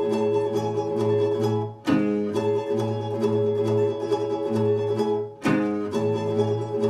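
Plucked-string music played through a Sonus Faber Toy Tower floor-standing loudspeaker, driven by a home-built KT120 valve monoblock amplifier and heard in the room. The phrase dips and restarts with a sharp attack twice: about two seconds in, and again about five and a half seconds in.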